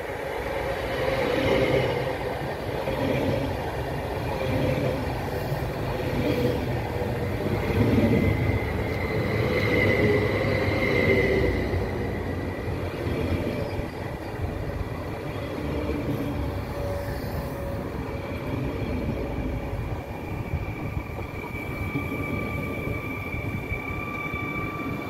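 A Stadler FLIRT electric multiple unit runs close past, with a steady rumble of wheels on the rails. A high whine or squeal rises about eight seconds in, and steady high tones come in during the last few seconds.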